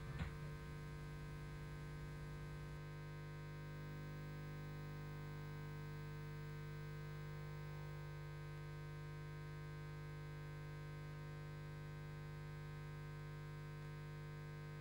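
Steady, faint electrical hum with a low drone and a few higher steady tones over light hiss, from a VHS tape transfer after the programme ends. The tail of the music cuts off right at the start.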